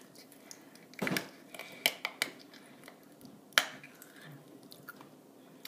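A few sharp crunches of hard sugar-candy 'rocks' being bitten and chewed, spread over several seconds with quiet between them.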